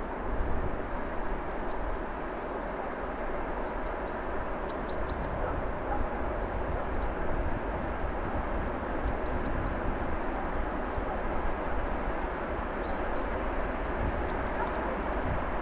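2M62UM twin-section diesel freight locomotive approaching in the distance with a loaded freight train: a steady diesel rumble that builds slightly. Small birds chirp briefly several times over it.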